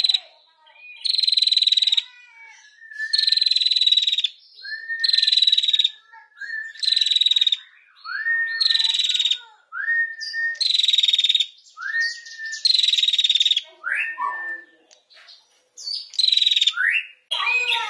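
Female tailorbird (prenjak) calling 'ngetir': a short rising whistle, then a harsh buzzy rattle. The call repeats about every two seconds, eight or nine times, with a short break near the end.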